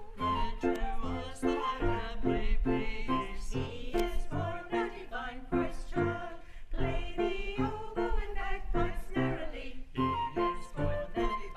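Hymn singing with instrumental accompaniment: voices carrying a melody over chords struck in a steady beat.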